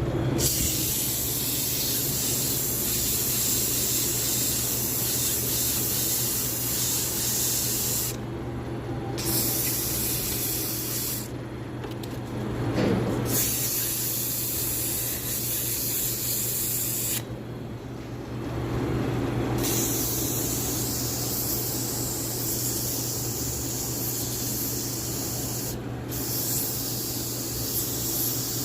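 Sandpaper pressed against a spinning brake rotor, a steady hiss that breaks off briefly about four times, over the steady hum of the brake-lathe motor turning the rotor. This is the final smoothing of a rotor freshly machined to remove warping.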